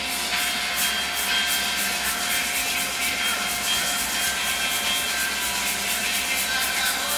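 Background music with a steady beat under a hissing wash of noise.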